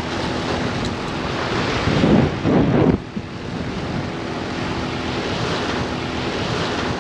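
Wind buffeting the microphone over water washing against the dike's rocks. A louder rushing surge comes about two seconds in and stops suddenly a second later.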